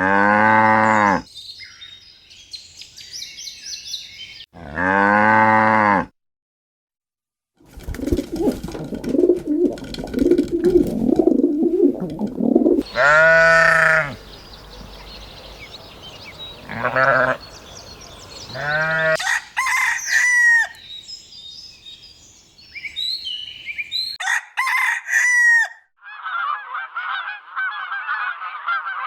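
A string of cut-together farm-animal calls, poultry among them. It opens with two long low calls, goes quiet briefly, then brings clucking and crowing with a few shorter calls, and near the end a flock chattering steadily.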